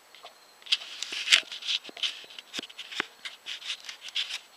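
Handling noise from a camcorder being held and repositioned: irregular rubbing, rustling and sharp clicks from hands on the camera body.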